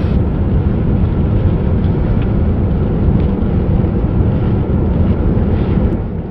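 Loud, steady low rumbling noise with no clear tone or rhythm.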